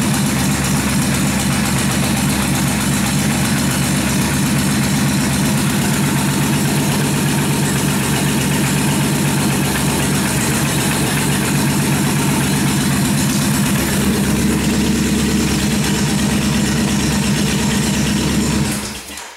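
Freshly rebuilt Kawasaki 1600 V-twin engine running steadily at idle, then shut off, dying away abruptly shortly before the end.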